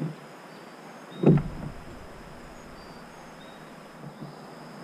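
A single loud knock about a second in, followed for a moment by a low rumble, over a steady high insect drone with a few faint chirps.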